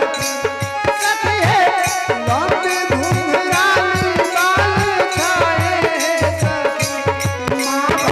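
Hindu devotional aarti music: a melody over a steady hand-drum beat.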